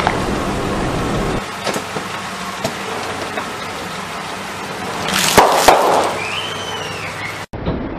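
Two sealed snack packets of peanuts bursting under a slowly rolling car tyre: two loud sharp pops in quick succession a little over five seconds in, over the steady running of the car.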